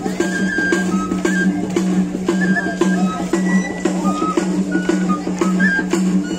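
Traditional dance music with a drum beaten in a steady quick rhythm and a high flute or pipe playing short notes, over a constant low hum.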